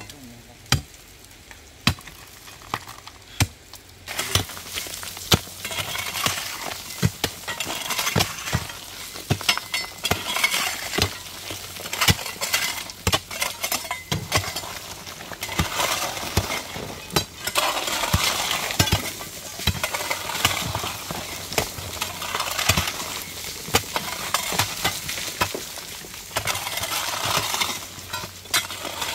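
Irregular sharp clicks and knocks over a crackling hiss that sets in about four seconds in and swells and fades.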